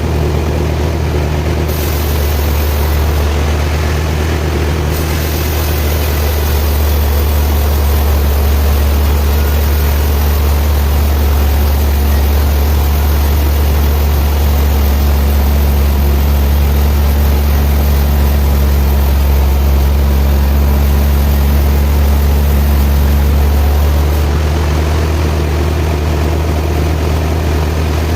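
Sawmill machinery running with a steady low engine hum. A higher hiss joins about two seconds in and lasts until near the end, where the sound also gets slightly quieter.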